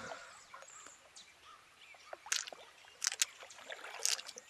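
A few small, sharp knocks and clicks from a wooden rowboat over a quiet lakeside background: a couple about two seconds in, two more around three seconds, and one near the end.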